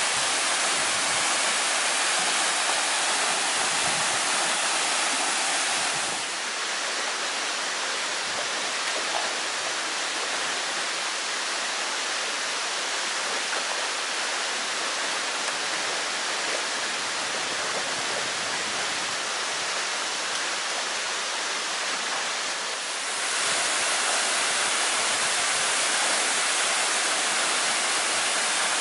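Steady rush of a small waterfall pouring into a rocky pool. About six seconds in it gives way to a slightly softer, even rush of shallow stream water, and the louder waterfall sound returns about five seconds before the end.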